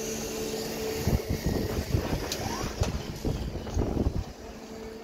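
Construction-site sound: a steady engine hum, with wind buffeting the microphone for the middle few seconds and two sharp metallic clicks about halfway through.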